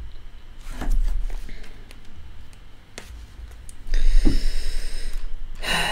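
A few sharp clicks at a computer desk, then a loud breath blowing onto the microphone about four seconds in, with a rumble and hiss, and another short breath near the end.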